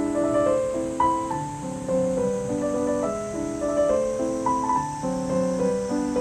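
Background piano music: a gentle melody of held notes over a steady accompaniment.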